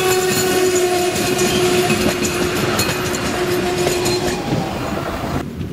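Diesel multiple unit passing close at speed: a steady engine and drive hum with wheels clicking over the rail joints, easing off as the train moves away. Shortly before the end the sound cuts abruptly to a much quieter low rumble.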